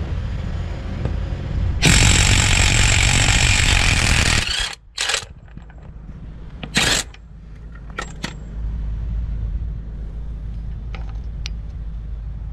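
Brushed-motor HART half-inch cordless impact wrench hammering on a rusty axle nut for about three seconds until it comes off with no problems, then two short bursts as the loosened nut is spun off. A few light metallic clicks follow.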